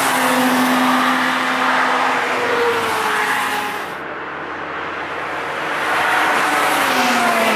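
Cars passing at speed on a race track. First a SEAT León Cupra's four-cylinder engine sweeps by, its note steady and then falling as it passes. After an abrupt cut about four seconds in, another car's engine grows louder near the end.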